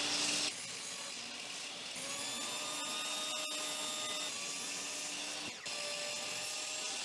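Metabo HPT jobsite table saw running and cutting half-inch plywood strips: a steady motor whine with the noise of the blade through the wood. The sound jumps abruptly a few times.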